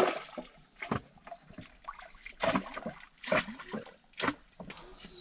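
Shallow stream water splashing and sloshing as it is waded and stirred, with about five sharp splashes at uneven intervals.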